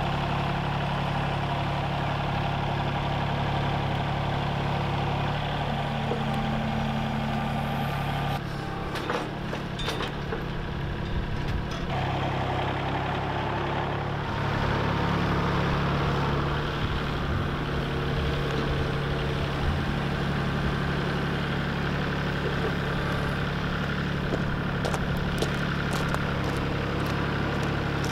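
Compact tractor's engine running steadily as the tractor works, moving logs on its front-loader forks, with a few knocks near the end.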